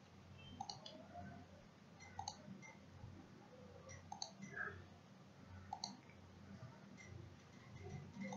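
Computer mouse clicks, about five, each a quick press-and-release pair, spaced one to two seconds apart over a faint low hum.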